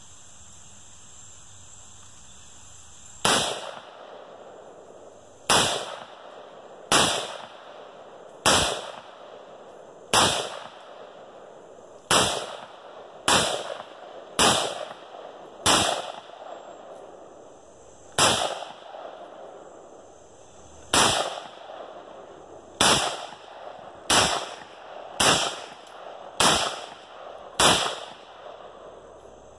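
FN FNC rifle firing 5.56 mm surplus ammunition, about sixteen single shots spaced one to three seconds apart, the first about three seconds in. Each crack trails off in a short echo.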